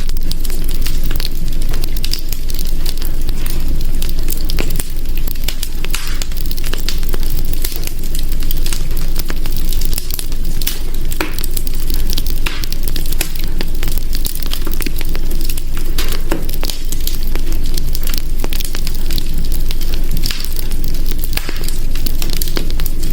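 Hearth fire crackling: a dense, irregular run of sharp pops and snaps over a steady low rumble of burning.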